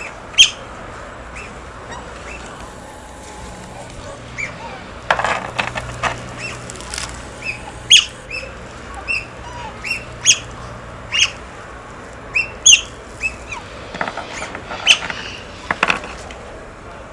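Otters calling: short, high chirps and squeaks, given irregularly one after another, a dozen or more over the stretch, some sharp and click-like.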